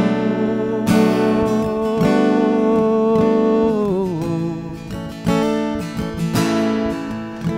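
Acoustic guitar strummed in a steady folk accompaniment, an instrumental passage between sung lines, with a strum about once a second.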